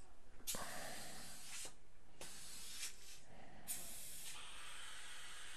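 Dental air syringe hissing in three short bursts, each starting and stopping sharply, followed by a steadier hiss from about four seconds in.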